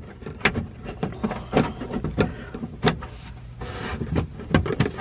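Hands working a small plastic wiring connector against the plastic panels of a side-by-side's cab: a scattered series of sharp clicks and knocks, about half a dozen, with a steady low hum underneath.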